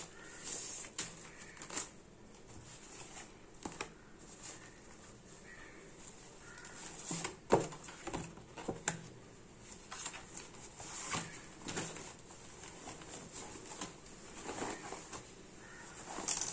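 Hands handling a clear plastic polybag and a cardboard packaging insert: irregular crinkling and rustling with scattered sharp crackles, the loudest about seven and a half seconds in.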